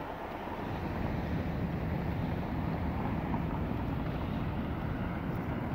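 City street traffic: a steady motor-vehicle rumble that swells about half a second in, with wind buffeting the microphone.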